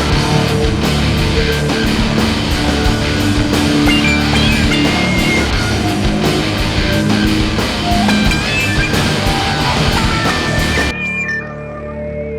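Background rock music with guitar and drums; about a second and a half before the end the drums stop and it drops to a quieter, softer passage.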